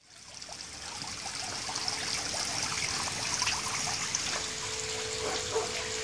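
Small garden-pond fountain jet splashing and trickling steadily, fading in from silence. A steady hum lies beneath it, growing stronger near the end.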